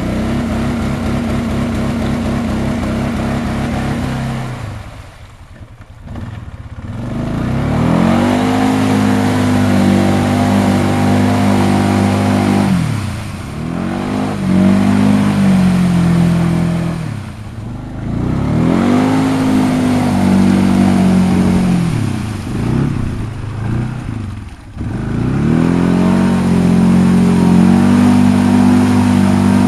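2009 Arctic Cat 550 H1 ATV's single-cylinder engine revving hard in about five long bursts, the revs falling away and climbing again between them, as the quad churns its tyres through deep mud while stuck.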